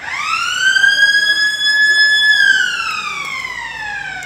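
A siren sounds one long wail. It rises quickly to a steady high pitch, holds for about two seconds, then slowly falls.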